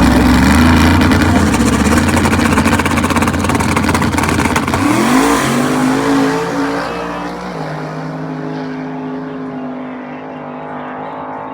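Drag race car engine running loud, rising in pitch about five seconds in, then fading away.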